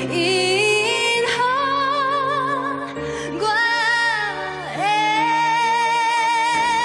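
A woman sings a Taiwanese-language R&B ballad live into a microphone over musical accompaniment. Her notes waver with vibrato, and in the second half she settles into one long held note.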